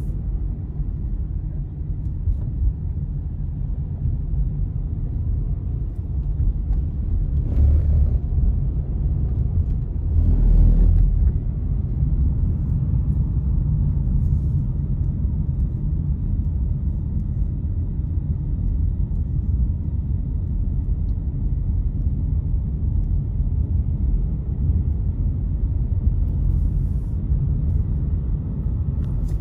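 Steady low road and engine rumble of a car heard from inside its cabin while driving at speed. It swells louder twice, briefly, about a third of the way in.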